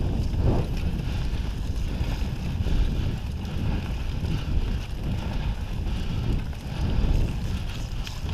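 Wind noise rushing over the microphone of a camera mounted on a moving mountain bike, with a steady low rumble from the ride.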